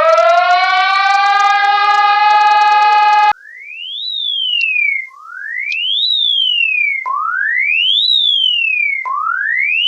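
Electronic emergency-alert alarm tones. First a buzzy tone slides up in pitch over the first second or so, holds steady, then cuts off abruptly about three seconds in. It is followed by a clean whistle-like tone that sweeps up and then back down, repeating about every two seconds.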